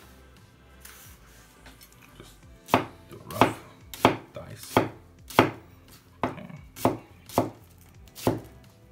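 Chinese chef's knife (cleaver) dicing an onion on a wooden cutting board: starting about three seconds in, about nine sharp, evenly paced knocks of the blade hitting the board, roughly one and a half a second.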